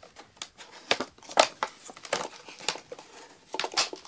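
Cardboard packaging being pulled open and handled by hand: irregular scraping, crinkling and tearing of the box flaps, loudest about a second and a half in.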